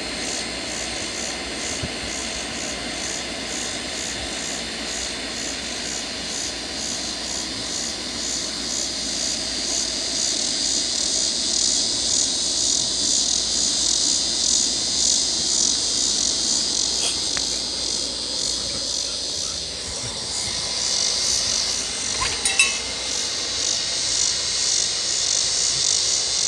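A chorus of cicadas ("locusts") buzzing in an even pulsing rhythm, growing stronger, over a low rumbling hum from the sky that fades out about two-thirds of the way through. A brief sharp click comes near the end.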